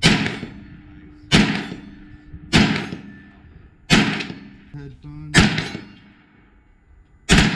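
AR-15 rifle firing six slow, single shots about a second and a half apart, each report trailing off in echo. The last report comes as a quick double, an accidental bump fire from the semi-automatic rifle.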